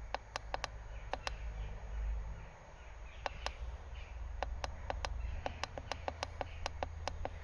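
Buttons on a 24-volt solar charge controller clicking again and again as its settings are stepped through, irregularly and sometimes in quick runs, over a low rumble and faint bird chirps.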